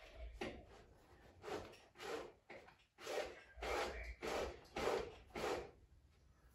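Treadmill running belt pulled and slid by hand over the deck, a series of about eight short rubbing swishes, as the belt is shifted back into position.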